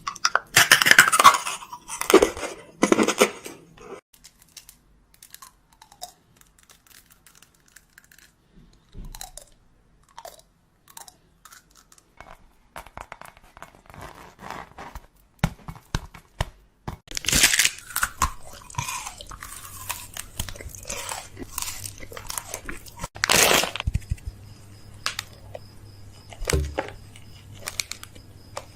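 Packaging crinkling and tearing while groceries are unpacked into a fridge, with scattered light clicks and knocks of items and containers being set down. The rustling is busiest at the start and in two short loud stretches later on.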